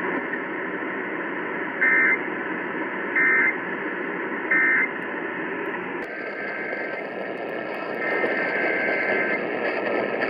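Emergency Alert System end-of-message signal over a radio: three short, identical buzzy data-tone bursts about a second and a half apart over steady static hiss, marking the end of the test. About six seconds in the hiss changes, and a longer burst of the same kind of data tone comes in near the end.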